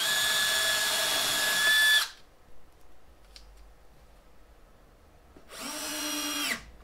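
Cordless drill spinning a Bosch Vix self-centering bit for about two seconds with a steady whine, drilling a pilot hole through a drawer slide's rear mounting hole. About three seconds later a second cordless driver runs for about a second to drive a 5/8-inch coarse-thread pan-head screw, its pitch dropping as it stops.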